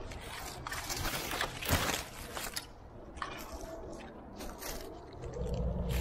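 Irregular scraping and rustling of a climber moving over rock and gear, with a sharper crunch about two seconds in. A low steady rumble comes in about five seconds in.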